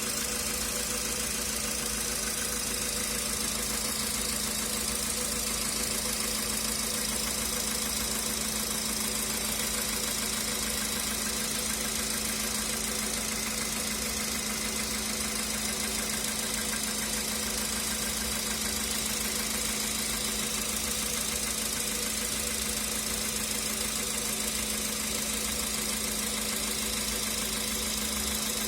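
Volkswagen Polo Sedan's 1.6-litre CFNA petrol engine idling steadily with a knock, at 112,000 km.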